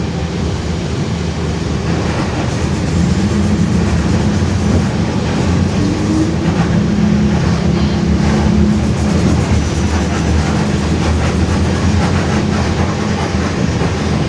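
Differential of a Mercedes-Benz OF-1721 bus droning very loud under the rumble of the moving bus. The low drone grows stronger and rises slightly in pitch from about three seconds in, then eases back after about nine seconds.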